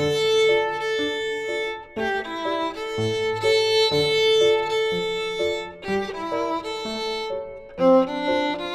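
Violin playing a melody in short phrases, with brief breaks about two seconds in and about six seconds in.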